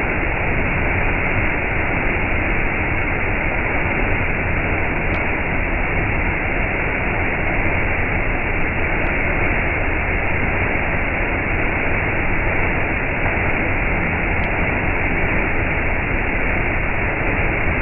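Steady, even rushing noise with no change in level, and a few faint ticks now and then.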